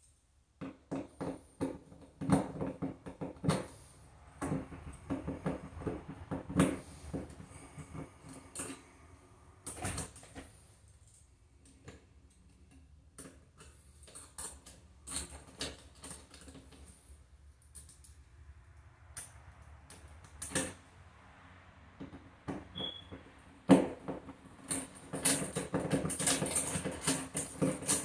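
Small screws and metal mounting hardware being removed and handled by hand at a wall electrical box, making irregular clicking, scraping and rattling. There is a short squeak near the end, followed by a denser run of rattling.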